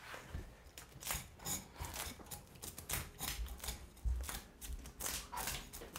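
Kitchen knife scraping the scales off a sea bream on a wooden cutting board: quick, uneven scraping strokes, about two or three a second.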